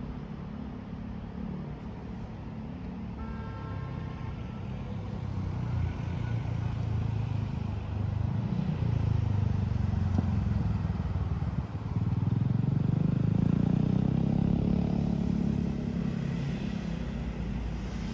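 Road traffic on a city street: cars and other vehicles passing, a low rumble that swells twice as they go by.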